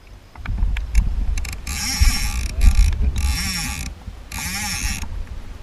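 Fly reel's click-and-pawl ratchet buzzing in three runs of about a second each, with a few single clicks before them, as line runs through the reel while a hooked salmon is being played. A low rumble runs underneath.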